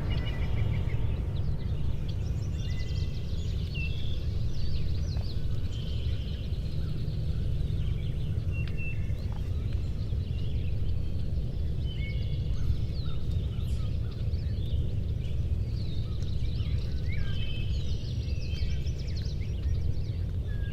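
Songbirds calling with many short high chirps and whistles over a steady low rumble.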